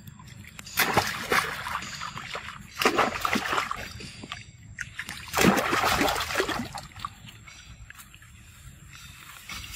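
Monkeys splashing in a pool of water: three loud bursts of splashing, each one to two seconds long, in the first seven seconds, then quieter lapping and stirring water.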